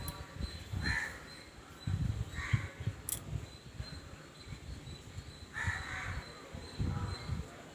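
A crow cawing several times, single calls spaced a second or more apart.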